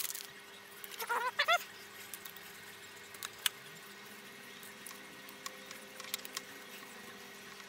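Quiet handling at a motorcycle brake hose union while the banjo fitting is fitted with fresh copper washers: a brief cluster of short squeaks about a second in, then a few light scattered clicks. A faint steady hum sits underneath.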